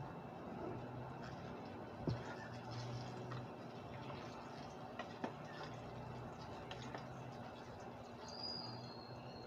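Small wood cooking fire burning under a pot, with a faint steady hiss and a few sharp crackles and pops.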